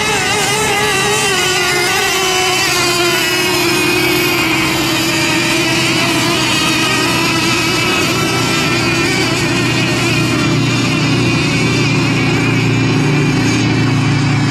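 Several radio-controlled racing boats running at speed on the water, their motors whining at overlapping, wavering pitches. A lower, steadier tone grows louder in the second half.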